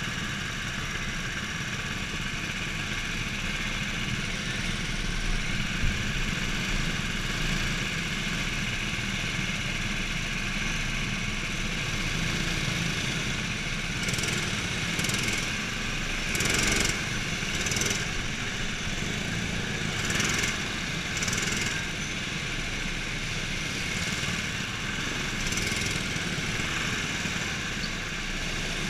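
Small go-kart engines running, idling while the karts wait in line, then the kart pulling out and driving onto the track. A few short, louder rushes of noise come about halfway through.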